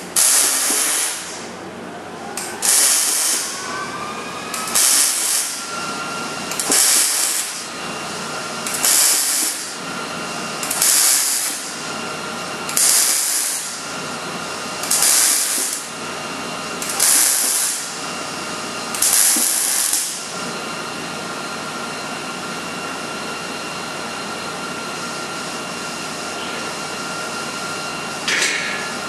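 MIG welding arc on a steel frame rail end, struck ten times for about a second each, roughly two seconds apart, laying a row of short welds. After that there is a steady background hum with one brief arc burst near the end.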